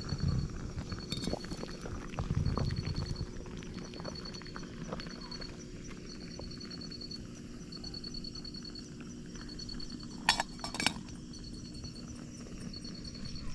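Camp cooking gear being handled: soft knocks early on, then two sharp metallic clinks about half a second apart near the end. Behind them, a high-pitched pulsed trill repeats in short runs about once a second.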